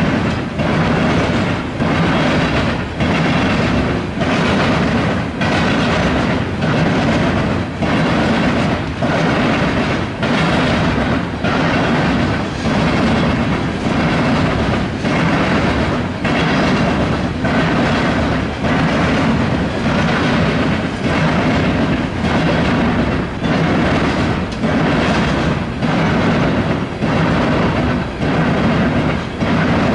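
Loaded coal train of hopper cars rolling past, its steel wheels clattering over the rail diamond crossing in a steady rhythm of about one clack-clack a second, over a continuous heavy rumble.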